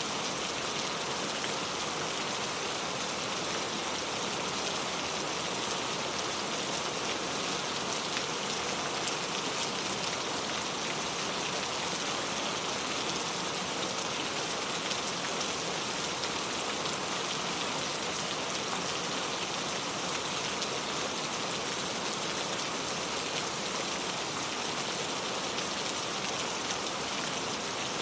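Steady rain falling, a dense even hiss of many drops pattering on a surface, unchanging throughout.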